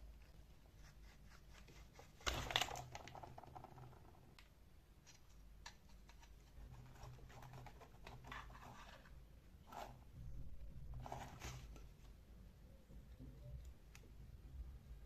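Quiet hand-work noises on small metal and plastic parts: scattered clicks, scrapes and rustles, with one louder clatter about two seconds in and a few shorter scrapes later.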